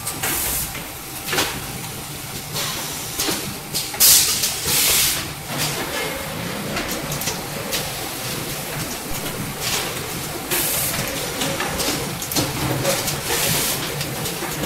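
Napkin tissue packing and sealing machine running: a steady mechanical clatter, with short sharp hisses of compressed air every few seconds from its pneumatic actuators. The loudest hisses come about four to five seconds in.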